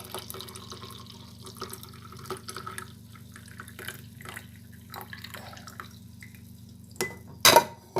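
Boiled milk with onion being poured through a strainer, trickling and dripping faintly. A loud knock about seven and a half seconds in, after a smaller click.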